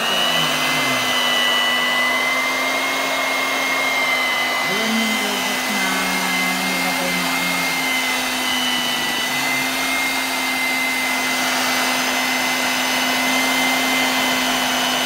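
Electric hand mixer running steadily at one speed, its beaters whipping cake batter in a bowl, with an even motor hum and a thin high whine.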